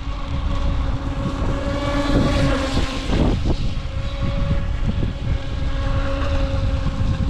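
Motor of a UDIRC Arrow RC boat whining steadily as it runs across the water, its pitch rising and dipping a few seconds in. Wind buffets the microphone with a low rumble.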